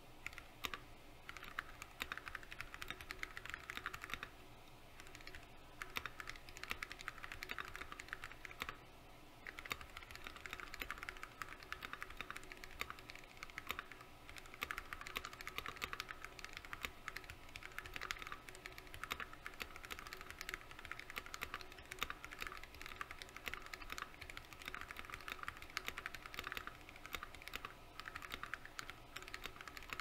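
Continuous fast typing on a KBD67 Mkii 65% mechanical keyboard with lubed Gateron Yellow linear switches, a brass plate and PBT keycaps: a dense run of keystroke clacks, with a couple of short pauses in the first ten seconds.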